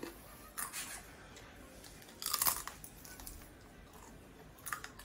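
Crisp homemade sweet potato chips crunching as they are eaten and broken apart: a few separate crackly crunches, the loudest about two and a half seconds in.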